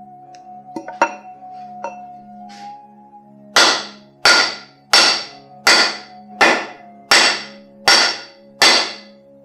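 A run of eight evenly spaced hammer blows, about one every 0.7 seconds and starting about three and a half seconds in, struck on the end of a new wooden axe handle. The blows drive the double-bit axe head down onto the handle's shoulder to set it. A few light taps come first, and soft background music with held tones plays throughout.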